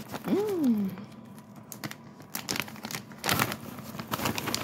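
Plastic snack bag of kettle corn crinkling as it is opened and a hand reaches in among the popcorn, in irregular crackles that thicken past the middle. A short voice sound rising and falling in pitch comes about half a second in.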